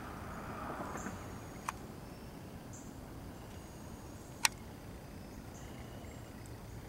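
Quiet woodland ambience with a faint high chirp repeating every couple of seconds, and two sharp clicks, the louder one just past the middle.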